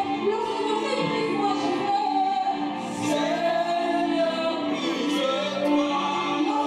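A woman singing a gospel worship song, with sustained chords held behind her voice.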